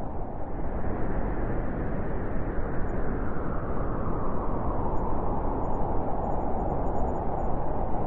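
Blizzard wind blowing steadily, a low rushing noise that eases slightly in the middle and swells again near the end.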